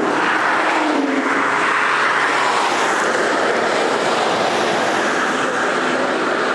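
Steady, loud rushing noise with no distinct pitch or rhythm.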